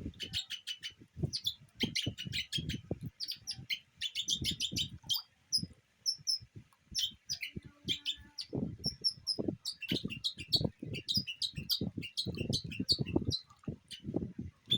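Sun conures giving many short, rapid chirps in quick clusters, with soft low thumps and rustles underneath.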